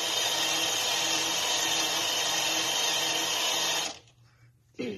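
Traxxas TRX-4 RC truck's electric motor and drivetrain whirring steadily, its wheels and drive shafts spinning freely with no load, until it cuts off abruptly about four seconds in.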